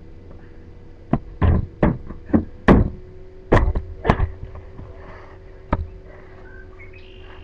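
A quick series of sharp knocks and thuds, about eight in some three and a half seconds, then one more a moment later.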